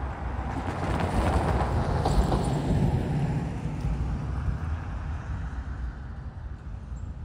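A car driving over the crossing and past, its tyre and road noise swelling over the first few seconds and then fading away, with a couple of faint knocks along the way.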